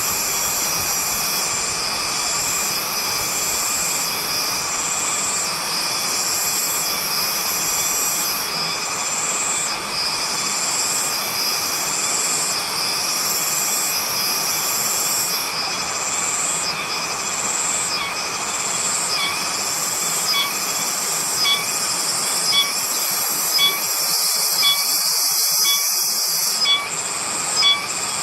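Cicadas singing: a loud, continuous high-pitched buzz whose upper part pulses at an even rhythm, slightly more than one pulse a second. In the last third, sharp ticks come in about once a second on top of the buzz.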